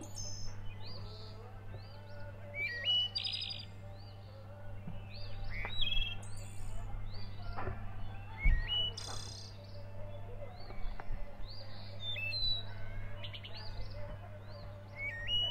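Small songbirds chirping and singing over and over, short rising notes repeated throughout, over a steady low hum. A few faint knocks, with a low thump about eight seconds in.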